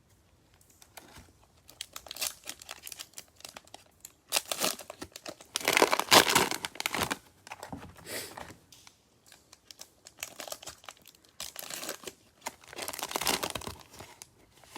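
Cellophane wrapper of a Panini Prizm football cello pack crinkling and tearing as it is ripped open, in uneven bursts of crackling. The loudest stretch comes about halfway through, with another near the end.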